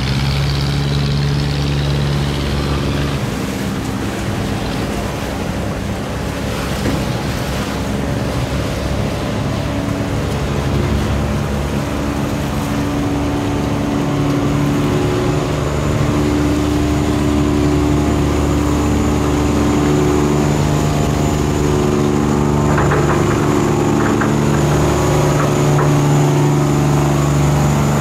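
A boat's engine running steadily, growing slightly louder toward the end.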